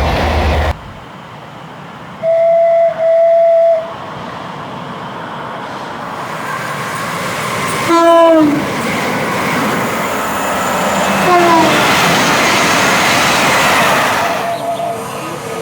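Train horns: two short blasts on one steady note, then a passing train's two-tone horn sounded twice, both notes sliding down in pitch as it goes by. Under the second pair of horn calls, the rush of the train passing at speed builds and fades.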